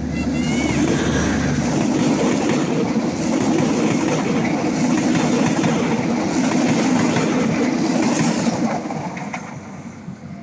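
A diesel-hauled train passing close at speed, with wheels clicking rhythmically over the rail joints. The last of its horn and the locomotive's engine hum fall away in the first second or two, and the rolling noise fades out near the end.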